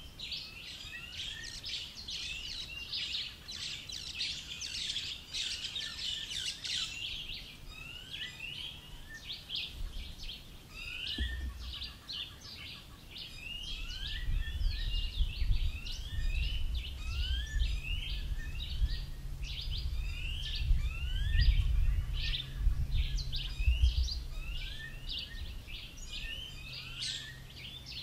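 Several birds chirping and calling without pause, many short rising chirps overlapping. From about ten seconds in, a low rumble with a steady low hum rises underneath and is the loudest sound through the middle, then eases off near the end.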